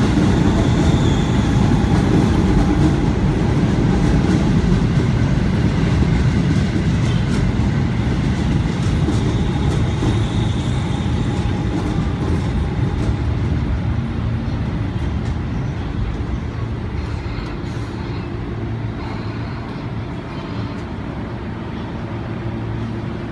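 JR 205 series electric commuter train running past along the platform, a steady rumble of wheels and motors that slowly fades as the last cars go by.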